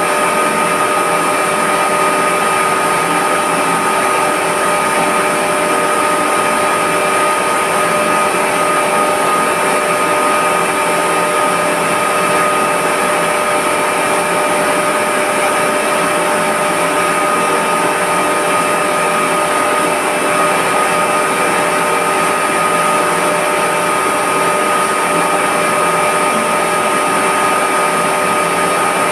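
Reverse osmosis plant's electric-motor-driven high-pressure pump running steadily: constant loud machine noise with a steady whine held over it.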